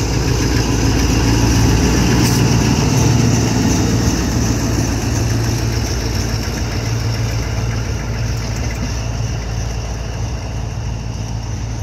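Alstom diesel-electric locomotive's engine running as it passes close by and draws away, a steady low hum loudest two to three seconds in, then slowly fading.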